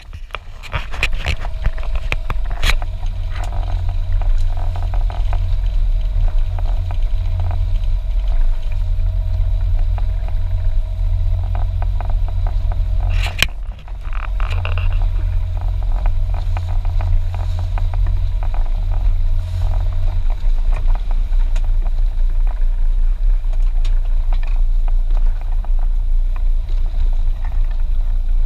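Fishing boat's engine running under way, a loud, steady low rumble, with scattered clicks and knocks from gear on deck. The rumble dips briefly about halfway through.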